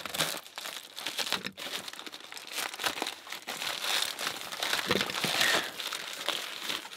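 Plastic trash-bag packing wrap crinkling and rustling as it is cut and pulled open by hand, a dense continuous crackle.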